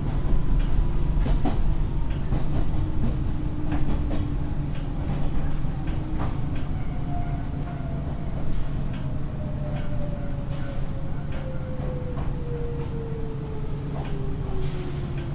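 Nankai electric train braking as it runs into a station: the traction motor whine falls steadily in pitch as the train slows, over a steady wheel-on-rail rumble with scattered clicks from rail joints.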